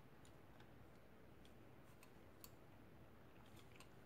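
Near silence with a few faint, scattered small clicks: a slim screwdriver shaft being handled against the plastic bit holder of an 8-in-1 screwdriver.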